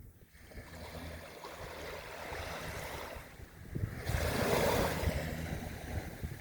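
Sea waves breaking and washing up the beach, one louder wave swelling and easing about four seconds in, with wind rumbling on the microphone underneath.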